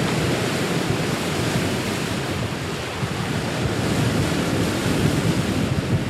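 Steady wind buffeting the microphone, mixed with open-sea water sloshing.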